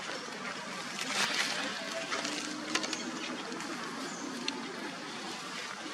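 Outdoor background among trees: a steady hiss with scattered short clicks and a few brief, high bird chirps.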